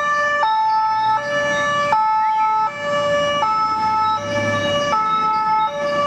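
Swiss ambulance's two-tone siren, alternating evenly between a high and a low note, each held about three-quarters of a second, over the low rumble of street traffic.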